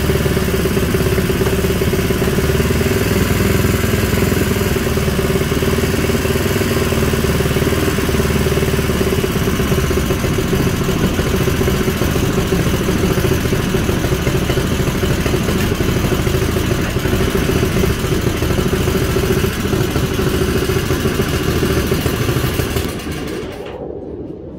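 Stage 2 Honda GX200 single-cylinder engine on a Tillotson TCT mechanical fuel injection carburettor, running steadily while it warms up before tuning. The sound falls away about a second before the end.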